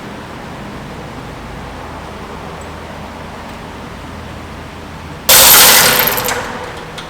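Air-conditioning refrigerant recovery and flushing machine running with a steady hum. About five seconds in, a sudden loud hiss of pressurised gas bursts out and fades over a second or so.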